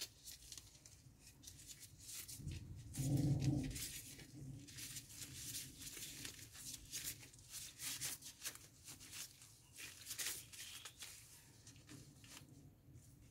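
Faint crinkling and rustling of disposable plastic gloves handling raw bacon and minced meat, many small sharp crackles. About three seconds in there is a louder, low muffled sound lasting about a second.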